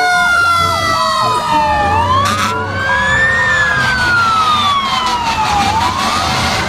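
Fire engine sirens sounding together from a procession of fire trucks. One siren's pitch sinks slowly while another wails, rising and falling about twice, with a short hissing blast about two seconds in.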